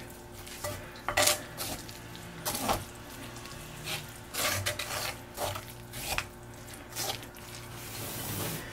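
Wooden chopsticks tossing spinach in sesame paste inside a ceramic suribachi mortar, with irregular taps and scrapes against the bowl's grooved sides.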